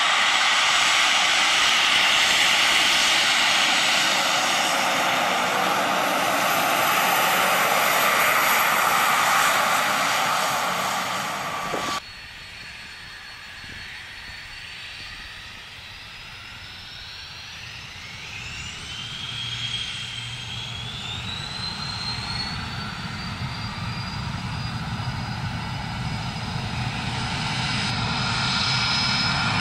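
Embraer 190 General Electric CF34 turbofans running loud and steady at high power on the runway, then a cut. After the cut, the four Honeywell LF507 turbofans of an Avro RJ spool up: several whines climb in pitch over a few seconds and level off, and a deeper rumble builds toward the end as the jet starts to move.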